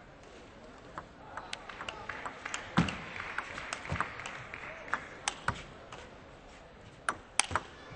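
Sharp, irregular clicks of a celluloid table tennis ball striking paddles and the table. The clicks come thickly for a few seconds with a soft swell of crowd noise under them, then a few more clicks near the end.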